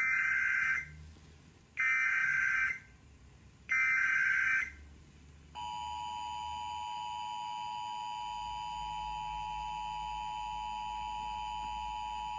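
Emergency Alert System tones: three one-second bursts of SAME digital header data, about two seconds apart, then the steady two-tone EAS attention signal sounding for about seven seconds.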